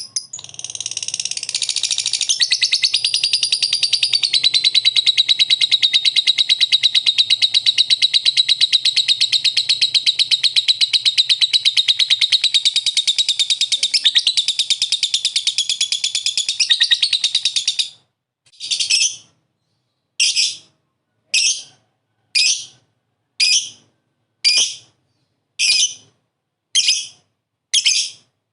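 Lovebird 'ngekek': a long unbroken, rapid chattering trill lasting about eighteen seconds, then breaking into separate short calls about one a second.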